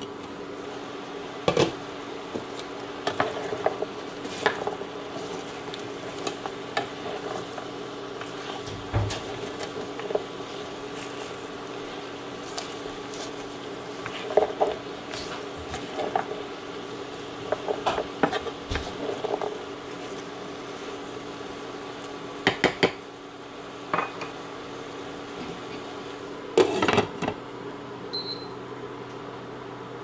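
Glass pan lid and a stirring utensil clattering and scraping against a pan as rice cakes and bok choy are stirred, in scattered clusters of sharp knocks, over a steady hum.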